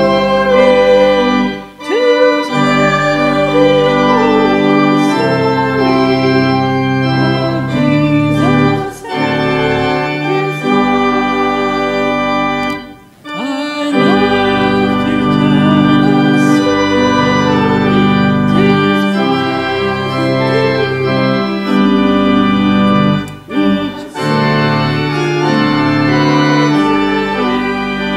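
Church organ playing sustained chords in slow phrases, with brief breaks between phrases about two seconds in, about thirteen seconds in and near the end.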